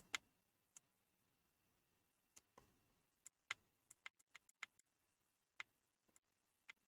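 Faint, irregular clicking: about fifteen presses of the Pinecil soldering iron's small push buttons as its settings menu is stepped through, packed closest together in the middle.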